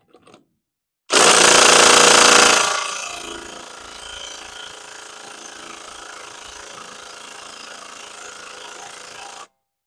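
Craftsman R+P 20 V cordless impact driver hammering on a lug nut torqued to about 100 ft-lb. It starts about a second in and is very loud for about a second and a half, then runs on much more quietly and steadily before cutting off near the end.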